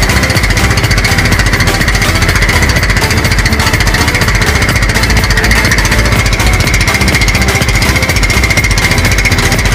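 Small motor bangka (outrigger boat) engine running steadily under load, loud with a rapid, even pulse, as the boat tows a bamboo raft on a rope.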